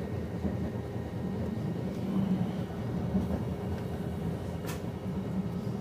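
Interior of a Montreux–Oberland Bernois metre-gauge electric train running downhill: a steady rumble of wheels on rail, with one sharp click from the track about four and a half seconds in.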